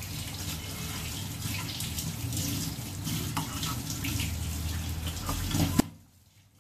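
A spatula scraping and scooping cooked, wet taro-leaf greens (kochu shak) out of a frying pan, and the mash plopping into a terracotta bowl, a wet squelching, crackling scrape. It stops suddenly near the end with one sharp knock.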